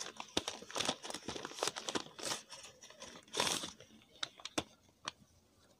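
Gift wrapping crinkling and rustling as a wrapped present is handled and opened by hand. There is a dense run of crackles for the first three and a half seconds, then only a few scattered clicks.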